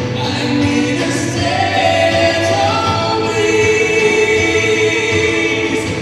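A pop ballad performed live: several voices sing together in long, held notes over a full instrumental backing.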